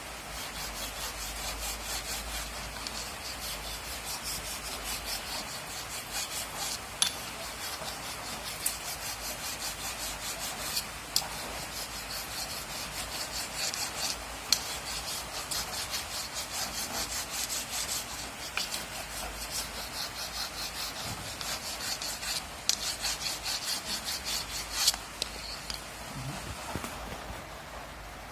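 Quick, rhythmic rasping and rubbing strokes from an abrasive hand tool being worked back and forth on a part, with a few sharp clicks in between. It eases off near the end.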